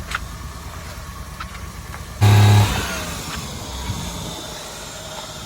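Motor vehicle engine running steadily, with a loud, short pitched blast about two seconds in.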